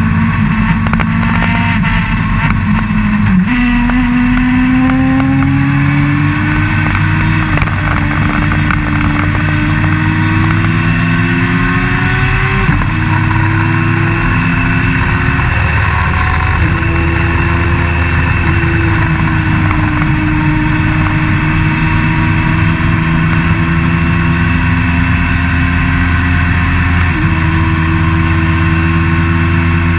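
Open-wheel race car's engine running hard at speed, heard from the cockpit with wind rush. Its pitch climbs slowly and jumps abruptly a few times as the driver changes gear.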